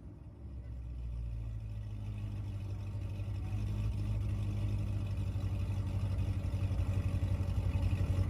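Chevrolet C6 Corvette ZR1's supercharged LS9 V8 running with a deep, steady low rumble that grows gradually louder.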